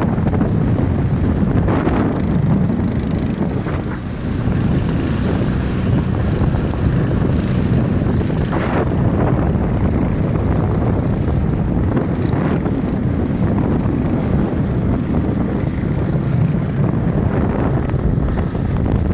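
Motorboat engine running steadily while crossing choppy water, with wind buffeting the microphone and a few brief splashes.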